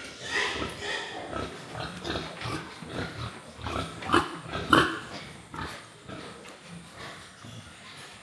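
Pigs grunting and calling in irregular short bursts, with the loudest calls about four to five seconds in.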